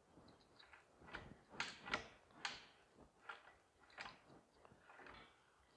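Faint, irregular metallic clicks and scrapes from a Tecumseh HS55 small engine being turned over by hand with its head off, about seven in a row and loudest early on. Something is catching and hitting as it turns, which the mechanic later suspects is under the flywheel.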